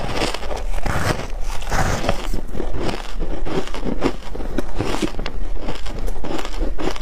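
Close-miked chewing of matcha-coated frozen ice: many sharp crunches in quick succession as the ice is bitten and crushed between the teeth.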